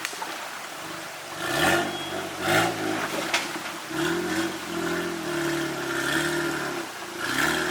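Off-road vehicle engine revving up in repeated bursts as it is driven over rough ground, its pitch rising about four times, with a few sharp knocks early on.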